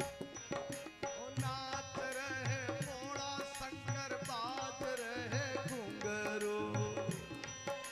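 Devotional kirtan music with no words: a hand drum keeps a keherwa rhythm over steady harmonium chords, with hand-clapping on the beat. Through the middle a bending, ornamented melody line wavers above it.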